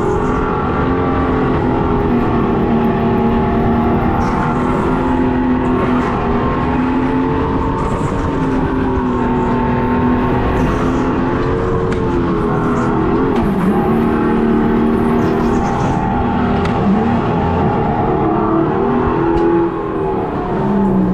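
Go-kart's piped-in engine sound played from a speaker behind the seat, a steady pitched drone whose pitch rises and falls with the throttle. The pitch dips and recovers briefly a little past halfway and again near the end.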